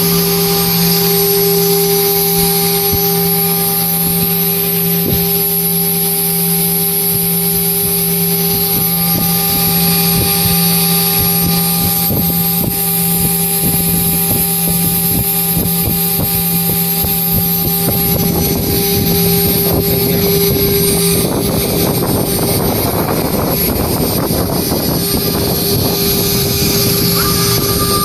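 CNC engraving machine's spindle running at speed with a steady whine and hum. About two-thirds of the way through, a rough scratchy noise joins in as the engraving bit cuts into an aluminium composite panel.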